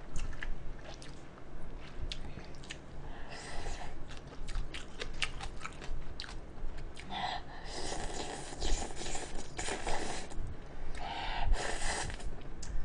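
A person eating instant cup noodles up close: slurping noodles and broth, with chewing and many small mouth clicks. The longer slurps fall about eight to ten seconds in and again near the end.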